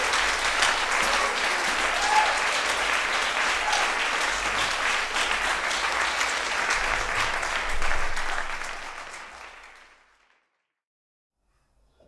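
Audience applauding, fading away from about eight seconds in.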